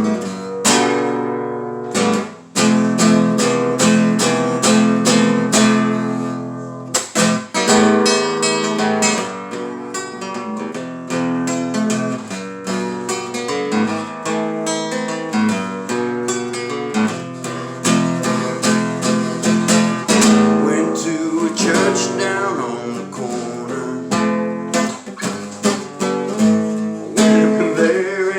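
Acoustic guitar playing an instrumental song introduction, with strummed chords and picked notes at a steady tempo.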